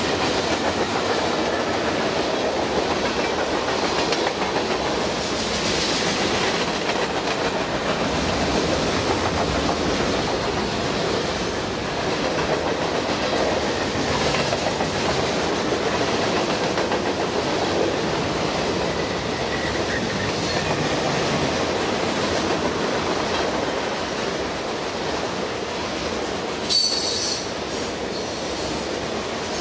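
Long freight train of hoppers, tank cars and boxcars rolling past: a steady rumble of steel wheels on rail, with a brief high-pitched metallic squeal from the train near the end.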